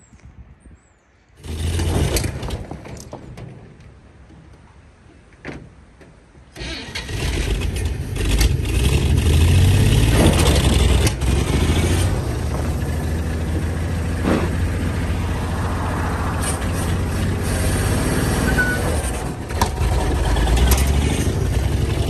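1953 GMC one-ton truck's inline-six engine, freshly freed from being seized, firing up. A brief loud burst comes about a second and a half in and fades. From about six seconds in the engine runs loud and steady, revving up around ten seconds in.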